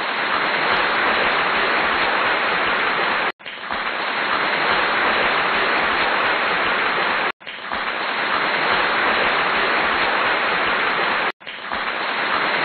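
A steady, even hiss with no pitch or pattern in it, cut off abruptly for a moment about every four seconds.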